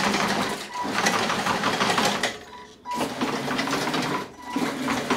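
Drive motors and tracks of a remote-controlled tracked mower chassis running and clattering on a concrete floor in three spurts with short pauses, as it is driven and turned by remote control.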